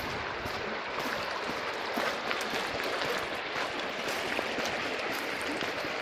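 Small shallow river running over riffles: a steady sound of flowing water.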